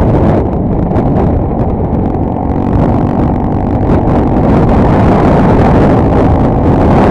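Honda Tornado 250 motorcycle being ridden, its air-cooled single-cylinder four-stroke engine running under heavy, steady wind buffeting on the GoPro microphone.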